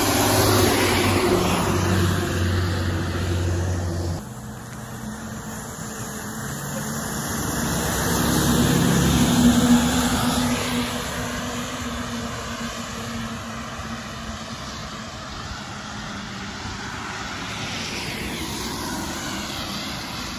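IC CE school bus engine heard from inside the cabin while driving. There is a steady low drone that drops off abruptly about four seconds in. The engine then climbs in pitch and loudness to a peak around halfway and settles back to a quieter steady running note.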